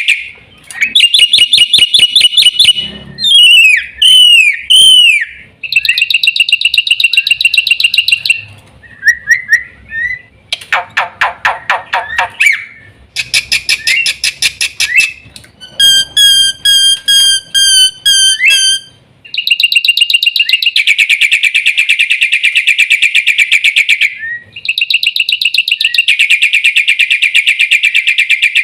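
Black-winged starling (jalak putih) singing a loud, varied song: long runs of rapid chattering notes broken by swooping whistles, a harsh rattle near the middle, and a string of clear repeated whistled notes about two-thirds of the way through.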